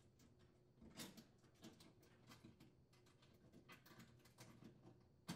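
Faint, scattered metal clicks and taps as the new oven broil element's sheet-metal bracket is hooked onto the retaining hooks on the oven's rear wall, the loudest tap about a second in.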